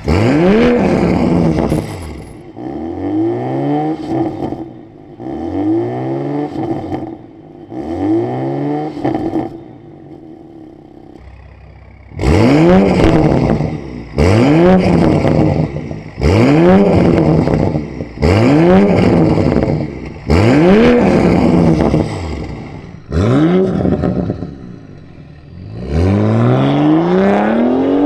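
BMW X3 M50's turbocharged inline-six, breathing through a valved Fi Exhaust catback and catless downpipe, free-revved over and over: four softer revs about two seconds apart, a short idle, then a run of loud, sharp revs about a second and a half apart, and a longer rising rev near the end.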